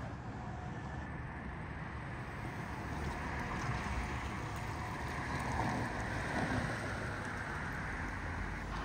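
Steady rush of road traffic on a wide multi-lane street, swelling a little through the middle as vehicles go by.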